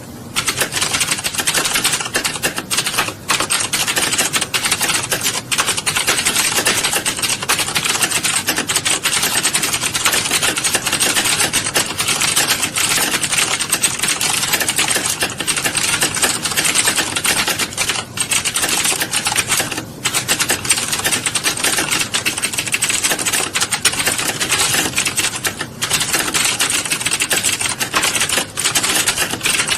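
Fast, continuous typing: a dense clatter of keystrokes with a few brief pauses.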